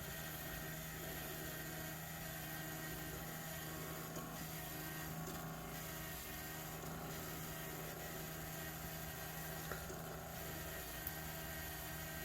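Steady low hum of a small electric motor running at an even pitch, with a couple of faint light ticks near the end.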